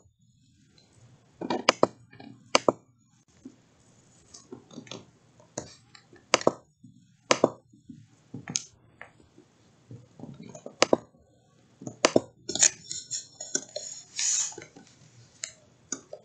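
Computer mouse clicks and keyboard keystrokes: separate sharp clicks a second or so apart, then a quicker run of taps near the end while a date is typed in.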